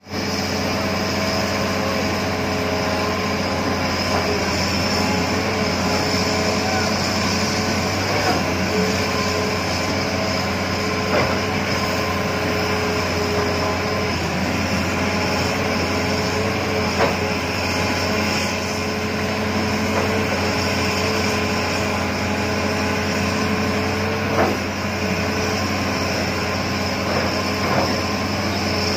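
Hitachi hydraulic excavator's diesel engine running steadily close by, a constant drone with several held tones, broken by a few short knocks.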